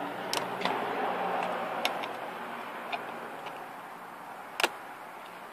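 Sharp plastic clicks from steering-wheel trim parts being handled and fitted together: a few separate clicks, the loudest about four and a half seconds in, over a low steady hiss.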